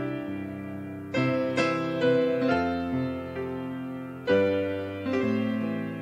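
Piano playing slow, sustained chords: new chords are struck about a second in and again after four seconds, each ringing and fading before the next.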